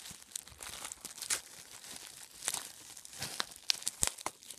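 Bubble wrap crinkling and crackling as hands unwrap a figure's stand, with irregular crackles throughout and a couple of sharper snaps near the end.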